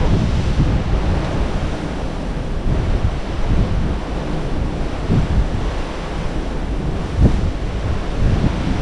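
Wind buffeting the microphone over the noise of a rough sea, with a few stronger gusts, the biggest about seven seconds in.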